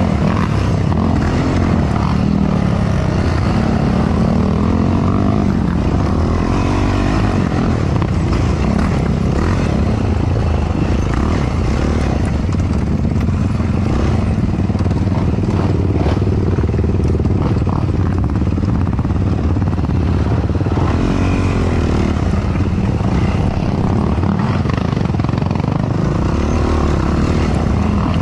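Yamaha YFZ450R quad's single-cylinder four-stroke engine running at low speed on a tight trail, its pitch rising and falling as the throttle is worked. There are occasional knocks from the machine over rough ground.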